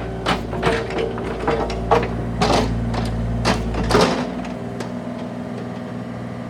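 Bobcat E35i mini excavator's diesel engine running under hydraulic load, with a rapid run of sharp metal clanks and knocks from the working arm and attachments over the first four seconds. About four seconds in the heavier low rumble drops away and the engine settles to a quieter steady run.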